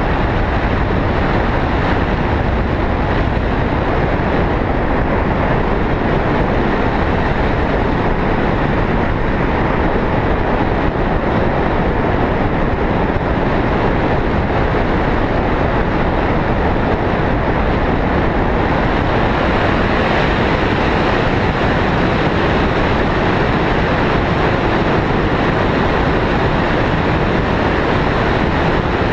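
Wind rushing steadily and loudly over a camera microphone held out in the airflow of a tandem paraglider in flight.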